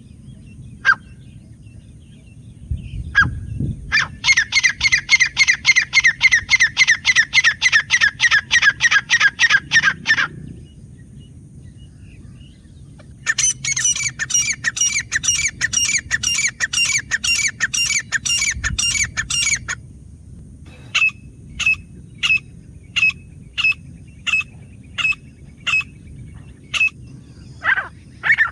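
Grey francolin calling: a few sharp single notes, then two rapid runs of repeated notes several seconds long with a pause between them, then slower single notes about two a second.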